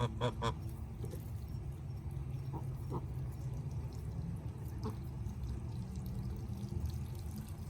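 Domestic geese give three quick honks right at the start, then a few faint single calls over the next few seconds, over a steady low rushing sound.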